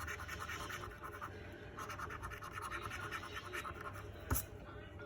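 Scratchcard being scratched: quick, repeated scraping of the latex coating off a Cash Bolts lottery card, with one sharp click a little after four seconds in.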